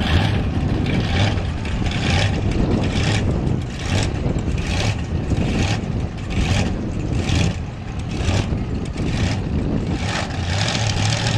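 Monster truck engine running loud, pulsing in a quick run of repeated revs, about one to two a second, through most of the stretch.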